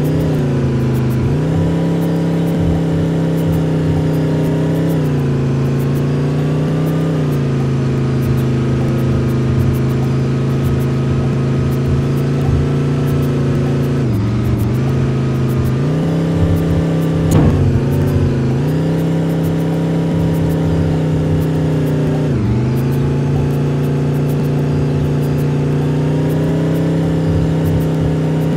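Bus engine running under load. Its pitch drops and climbs again every few seconds with changes of throttle and gear, and there is one sharp knock past the middle.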